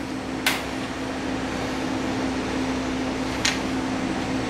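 Steady fan-like hum and hiss with a constant low drone, broken by two light clicks, about half a second in and again near the end, as the hedge trimmer's gearbox plug is worked by hand.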